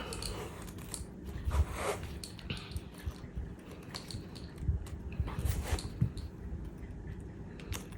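Small, scattered clicks and rustles of hands working a metal jump ring into the hole of a small acrylic disc, with a few soft low knocks.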